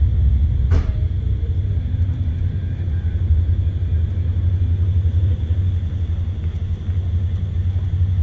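Wind buffeting the microphone: a loud, steady low rumble, with a single sharp click a little under a second in.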